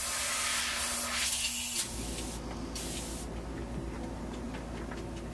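Airbrush spraying with a steady hiss of air that cuts off about two seconds in, then one short burst around three seconds in. A low steady hum runs beneath after the first spray stops.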